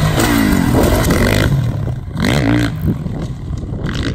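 Dirt bike engine revving as the bike jumps. The pitch drops early on, then the throttle is blipped up and back down a little past two seconds in.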